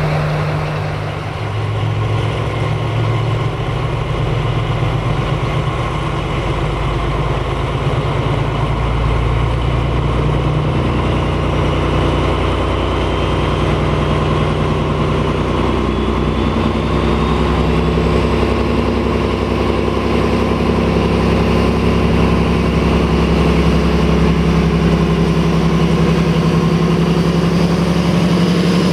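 MÁV M41 diesel-hydraulic locomotive's engine running steadily at idle, then picking up revs about two-thirds of the way through, with a faint rising whine just before.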